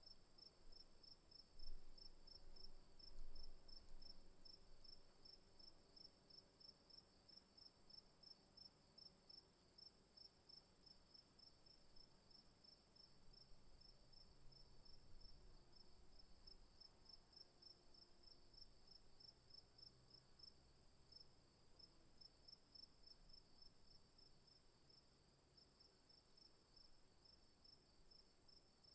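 Faint cricket ambience: one steady, continuous high trill and a second cricket chirping in quick, regular pulses. Two soft, low bumps come about two and three seconds in.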